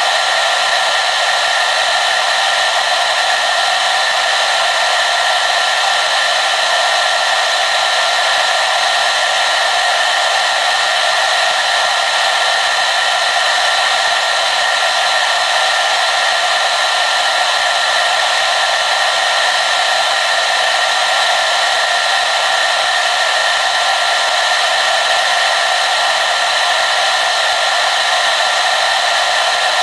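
Hair dryer running continuously on a steady setting: an even, unbroken rush of airflow with a faint steady whine from the fan motor, and little low rumble.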